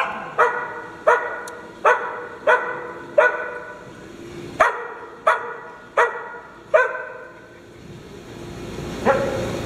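A dog barking repeatedly, about one bark every two-thirds of a second. A pause of about two seconds comes near the end, then one more bark.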